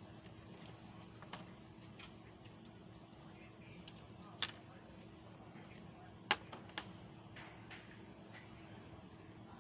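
Scattered sharp clicks and taps, irregularly spaced, the loudest about four and a half and six seconds in, over a faint steady hum.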